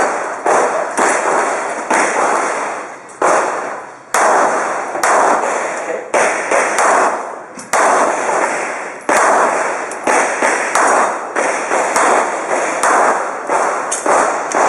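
Pistol shots fired in rapid strings, about two a second, with brief pauses between strings, each shot trailing off in echo.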